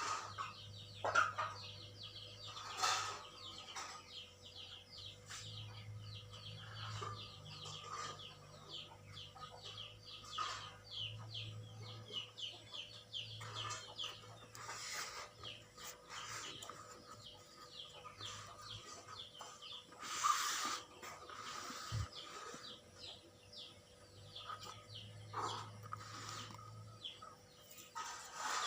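Birds chirping and calling in the background, many short quick chirps repeating throughout, with a few scattered knocks or rustles, the loudest about 20 seconds in.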